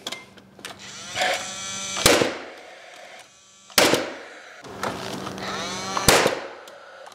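Paslode cordless gas framing nailer driving nails into a wooden stud: its fan whirs up, then it fires with a sharp shot, three times, about two, four and six seconds in.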